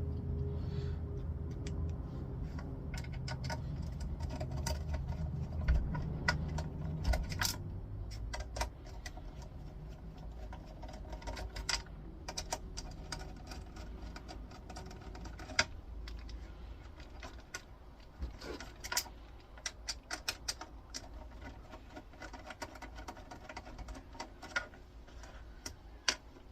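Irregular small clicks and light metallic rattles of hand tools and small steel bolts being handled while taking apart a flat-screen monitor. A low rumble fades out about eight seconds in.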